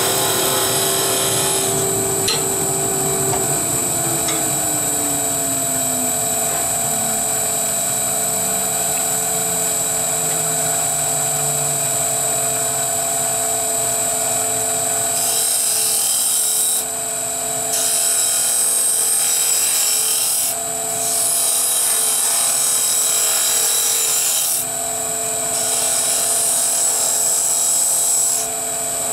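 Wood lathe running with a steady whine while a turning gouge cuts a small wooden spinning-top body. The cuts come as four scraping stretches of a few seconds each in the second half. A lower tone slides steadily down in pitch over the first half.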